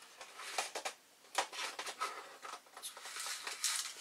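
Light rustling and irregular small clicks of small parts being handled by hand, with one sharper click about one and a half seconds in.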